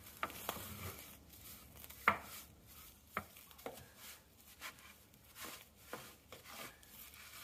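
Soot being scraped and swept out of the Trevithick steam locomotive's metal smokebox by hand, with scattered scrapes and short knocks of the tool against the metal. The sharpest knock comes about two seconds in.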